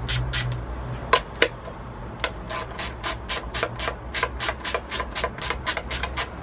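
Socket ratchet on an extension bar clicking steadily, about four clicks a second, as it backs out long-threaded 10 mm nuts. Two louder metallic clinks come about a second in.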